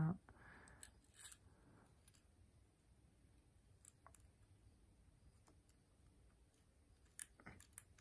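Faint, scattered clicks and light metal taps of a Zippo lighter's chrome insert and brass case being handled after its flint has been taken out: a couple about a second in, two around four seconds in, and a few more near the end.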